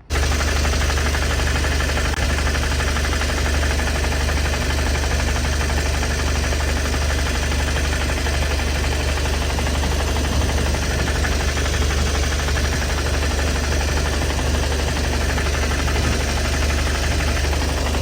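A GAZelle Next van's engine idling steadily, cutting in suddenly at the start.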